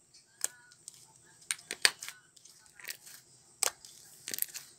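Sticky, glossy slime being kneaded and folded by hand, giving irregular sharp wet clicks and pops as it is squeezed and pulled apart, with a short flurry of them near the end.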